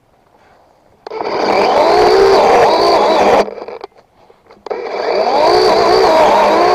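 Chainsaw run at full speed in two bursts, its pitch wavering as it cuts; it starts abruptly about a second in, cuts out briefly past the middle, then starts again.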